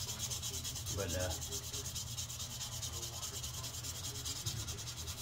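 Hand-sanding a knife with sandpaper: quick, even back-and-forth scratching strokes, several a second, going on steadily.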